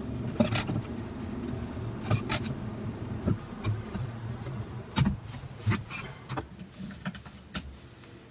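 Scattered clicks and clinks of small metal battery connector plates and a hand tool being handled, over a steady low hum.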